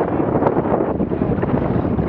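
Wind buffeting the microphone and choppy water lapping and slapping against the hull of a capsized Laser 2 dinghy, with one light tap about halfway through.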